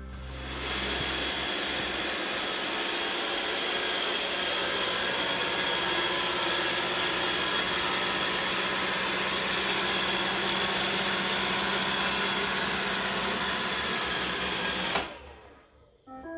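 iRobot Roomba 605 robot vacuum running: a steady whirring hiss with a constant high whine. It comes in about half a second in and cuts off abruptly about a second before the end.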